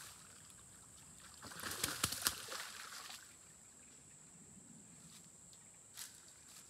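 Hooked bowfin splashing at the water's surface while being played on a rod, a burst of splashing with a few sharp slaps from about a second and a half to three seconds in.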